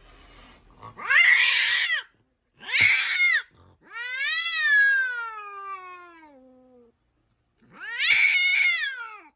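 A domestic cat meowing four times: two short meows, then a long drawn-out one that slides down in pitch, then another short meow near the end.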